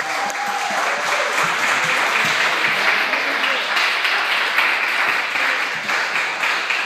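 A small audience of children clapping steadily, with young voices calling out over the applause near the start.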